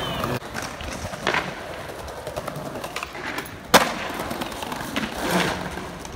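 Skateboard wheels rolling over stone paving, with a small sharp crack of the board on the ground about a second in and a louder crack in the middle, then a rougher swell of rolling noise near the end.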